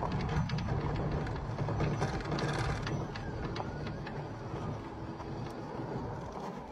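Low rumble with a dense rattle of short clicks, the noise of the camera moving across dirt and gravel; it drops away sharply at the very end.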